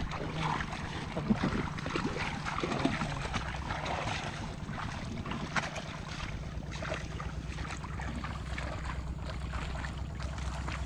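Wind buffeting the microphone, with irregular sloshing steps of people wading through shallow water and wet grass, over a steady low hum.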